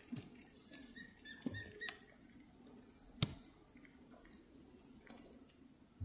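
Faint rustling and a few sharp ticks in dry pine needles as a tiger keelback shifts over them.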